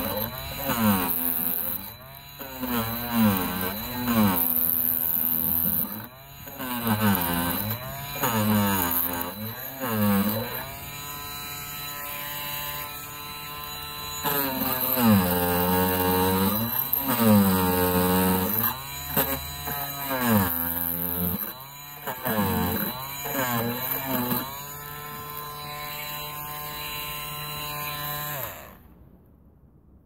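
Parkside cordless oscillating multi-tool with a scraper blade, running as it scrapes paint off a painted wooden board; its whine repeatedly dips in pitch and recovers, and it is switched off near the end.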